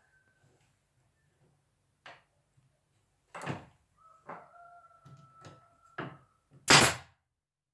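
A string of scattered wooden knocks and taps, the loudest a single heavy knock near the end, with a thin squeak held for a couple of seconds in the middle.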